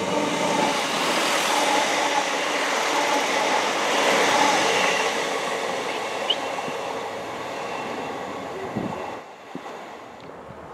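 A train passing through a station on the main line, rising to its loudest about four seconds in, then fading away and dropping off about nine seconds in.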